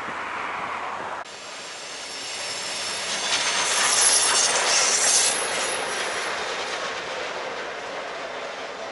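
CN diesel-led train passing close by: wheel-on-rail noise rising to a peak with a thin high-pitched wheel squeal around four seconds in, then fading as it goes by. It is preceded by about a second of a passing passenger train, cut off abruptly.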